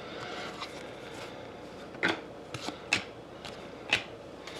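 Hockey trading cards being handled and set down: a few light clicks and taps with faint rubbing, spread over the few seconds.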